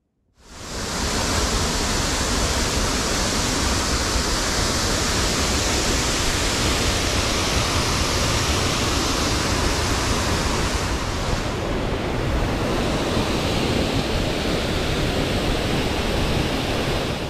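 Loud, steady rush of fast-flowing water, a mountain creek or falls, starting abruptly and holding even, with its hiss changing slightly about eleven seconds in.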